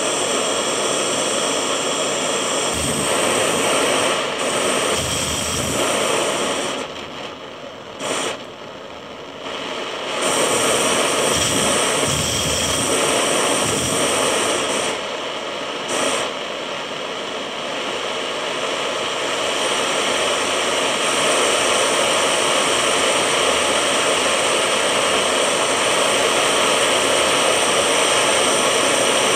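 Handheld butane gas torch flame hissing steadily as it heats silver scrap in a ceramic crucible to melt it. The sound drops away for a few seconds about seven seconds in, then comes back and holds steady.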